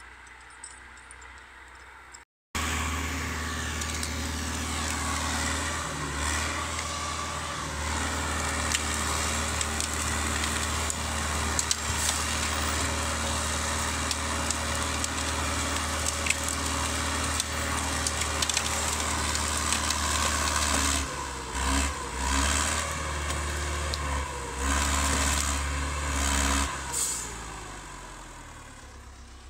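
LKT 80 forestry skidder's diesel engine running close by, starting in at about two seconds. Later the engine sound dips and surges several times, then fades away near the end.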